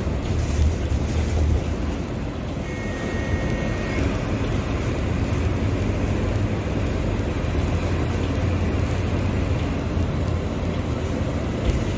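Mercedes-Benz OF-1721 Bluetec 5 bus's four-cylinder diesel engine running steadily, a deep even rumble. A short electronic beep sounds about three seconds in.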